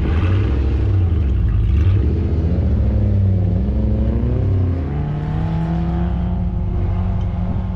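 Off-road 4x4's engine running under load, its pitch dipping about three seconds in and then climbing steadily, over a heavy low rumble.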